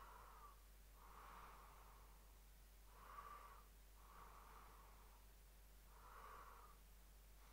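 Faint, slow breathing close to the microphone, a soft in-and-out about every three seconds, over a low steady hum.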